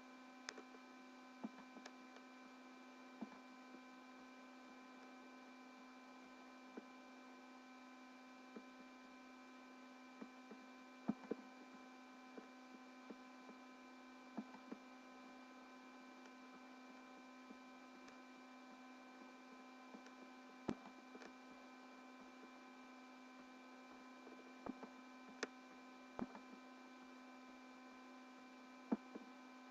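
Faint, steady hum made of several fixed tones, the strongest a low one, with short clicks here and there.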